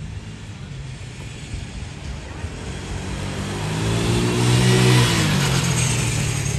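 An SUV driving past on the road: its engine and tyre noise build up, are loudest about five seconds in, and the engine note drops slightly as it moves away.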